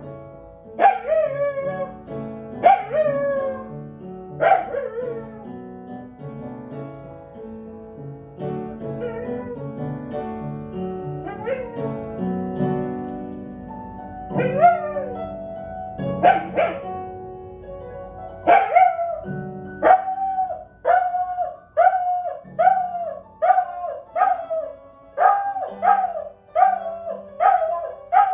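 A corgi howling along to music: several separate wavering howls at first, then from about two-thirds through a quick, even run of short howls, a bit more than one a second.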